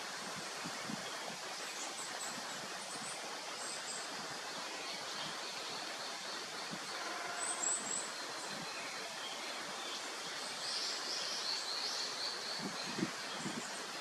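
Steady outdoor background noise with faint, high chirps of small birds calling now and then. A few soft low taps come near the end.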